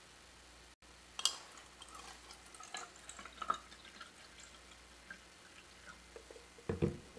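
Fiji water poured from its bottle into a clear plastic cup, heard as scattered splashes and drips. Near the end there is a low thud as the bottle is set down on the table.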